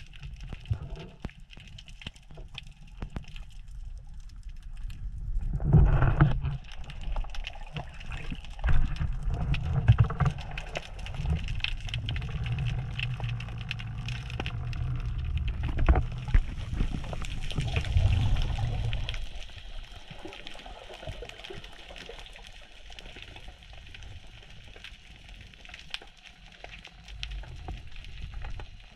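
Underwater water noise around a diver's camera: a low rushing and gurgling of moving water with scattered clicks and crackles. The rushing swells about a fifth of the way in and eases off about two thirds through.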